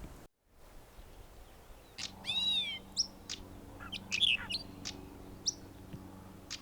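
Birds calling: one drawn-out call that rises and falls in pitch, then a string of short, sharp chirps. A faint steady low hum sits underneath.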